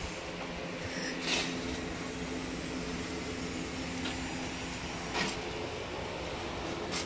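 Steady background hum holding a few faint steady tones, broken by a few brief soft clicks.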